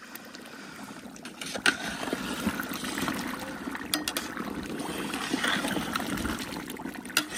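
Beef korma bubbling in a large metal cooking pot while a long metal ladle stirs it, with a few sharp knocks of the ladle against the pot.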